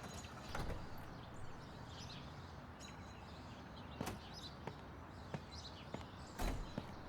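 Outdoor ambience: a steady background hiss with birds chirping, broken by scattered knocks, the loudest about six and a half seconds in.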